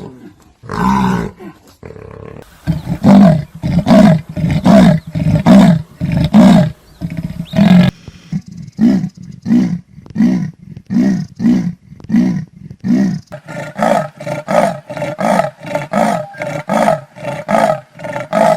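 A big cat's grunting roar call: a long, even run of deep grunts at about two a second, the first few loudest, after a single call about a second in.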